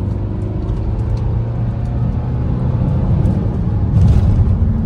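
Car engine accelerating in Sport mode, heard from inside the cabin: the engine note rises in pitch and grows louder over road rumble, with a louder surge about four seconds in.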